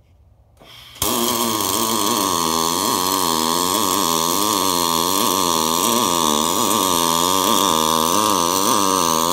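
Pulsed MIG welding arc on aluminium plate, from a Miller XMT304 with an Optima pulse box feeding 0.047 5356 wire. The arc strikes about a second in and then buzzes steadily over a hiss, its pitch wavering about twice a second.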